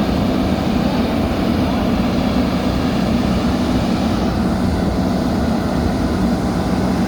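Diesel engine of a JCB backhoe loader running steadily at a constant speed.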